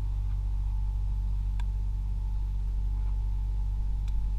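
A steady low rumble with a faint high hum over it, and two faint clicks, one about one and a half seconds in and one near the end.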